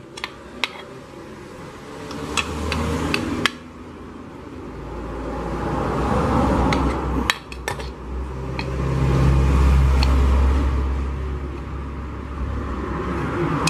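Light metal clinks and taps from handling pressure-cooker parts, then a motor vehicle's low engine rumble that builds and fades, loudest about ten seconds in.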